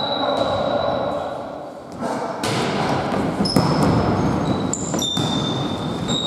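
Volleyball rally in an echoing sports hall: a steady whistle tone at the start, then sharp hits of the ball about two and a half, three and a half and five seconds in, with short shoe squeaks on the court floor in the second half.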